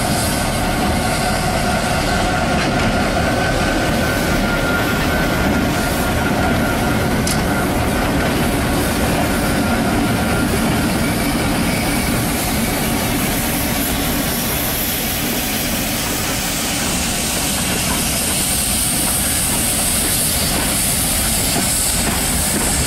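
Victorian T-class diesel locomotives running as they haul a train past, a steady engine din mixed with wheels on the rails. Near the end a rising hiss joins in as the J-class steam locomotive passes, venting steam at its cylinders.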